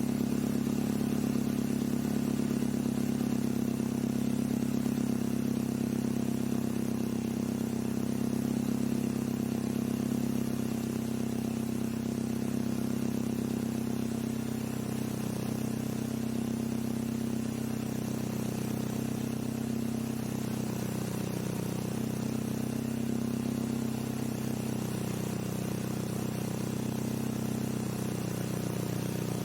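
Proton Savvy's 1.2-litre Renault D4F four-cylinder engine idling steadily, its exhaust note coming through a Spoon N1 aftermarket muffler.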